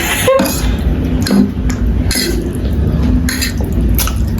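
A person eating spicy noodles: a string of short, noisy mouth sounds of slurping and breathing, over a steady low hum.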